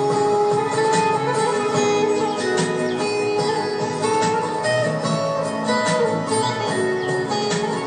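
Background music: an instrumental passage of a song, carried by plucked strings over sustained tones.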